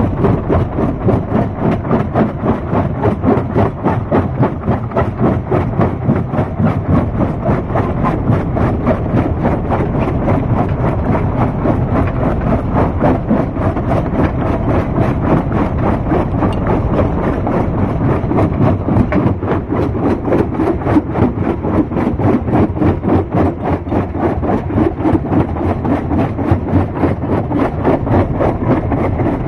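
Stone crusher running, with a dense, continuous clatter of rock being broken and rattling through the machine under its engine noise.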